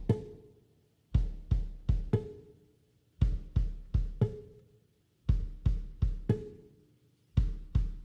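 Background music: a drum beat of quick, sharp strikes in groups of about four, with a short pause between groups, repeating about every two seconds.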